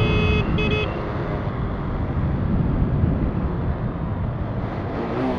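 Motorcycle ride heard on the camera's microphone: a Mondial 125 KT's single-cylinder engine running under steady wind rush. A horn sounds twice, briefly, in the first second.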